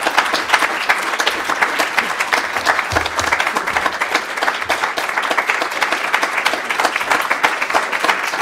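Audience applauding steadily, many hands clapping together at the end of a reading.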